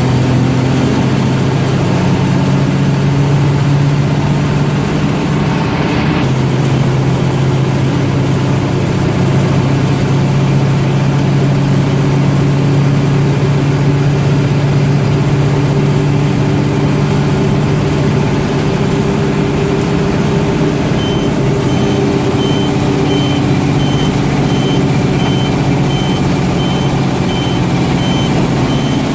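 Mack DM690 concrete mixer truck's diesel engine running loudly at a steady speed. A reversing beeper sounds a string of short, high, evenly spaced beeps over roughly the last third.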